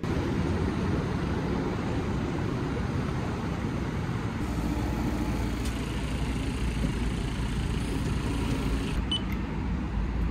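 Steady vehicle noise, a constant low-heavy hum with hiss like riding in a car or other vehicle, starting suddenly.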